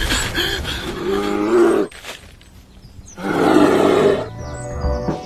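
Bear growls and roars, in two bouts with a short pause between, the second louder and rougher, over background music.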